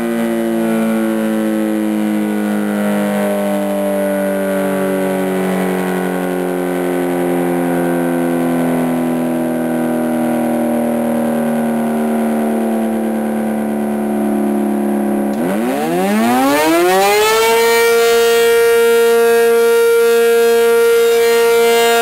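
Federal Signal 500-DH-TT outdoor warning siren winding down with its pitch falling slowly, then starting up again about fifteen seconds in. The pitch climbs quickly and settles on a steady, loud tone within about two seconds as the next one-minute test activation begins.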